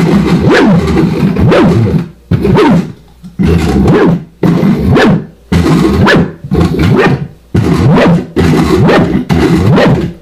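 Hand-cranked stepper-motor noise instrument with homemade coil pickups, played through a guitar amp: cranked fast, it gives a loud buzzing drone whose pitch slides up and down with crank speed, in about eight surges broken by short gaps. The pickups are catching the motors' magnetic pulses, so the faster the crank turns, the higher the pitch.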